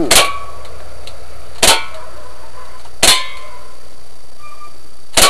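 Airsoft gun firing four single shots, each a sharp snap, about one and a half seconds apart, with a short ringing after some of them.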